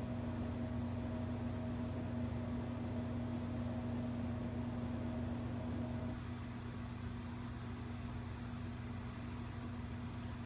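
Steady low hum with a faint hiss behind it; a higher faint tone within it stops about six seconds in.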